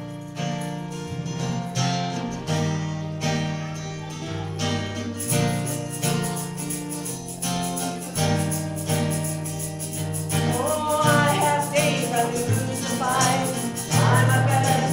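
Worship song played on a strummed acoustic guitar over held low bass notes, with singing coming in about ten seconds in.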